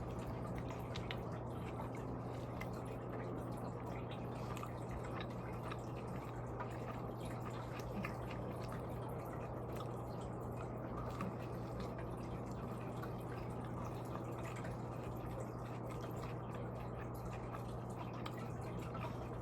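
Faint wet clicks and smacks of someone chewing food, scattered over a steady low electrical hum and room noise.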